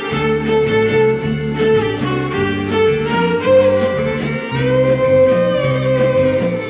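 Violin section playing the melody of an Arabic song's instrumental introduction in long held notes, over a bass line that steps from note to note and a light, even percussion beat; no singing.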